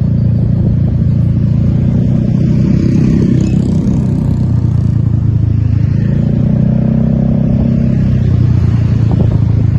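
A heavy road vehicle's engine running loudly and steadily, with a deep, even rumble and no horn.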